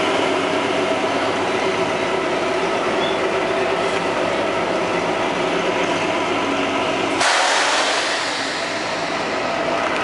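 Train's diesel engine running steadily, a hum with several steady tones. About seven seconds in, a sudden loud hiss comes in and fades away.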